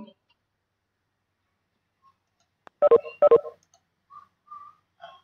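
Near silence, then two short electronic beeps in quick succession about three seconds in, followed by a few faint blips.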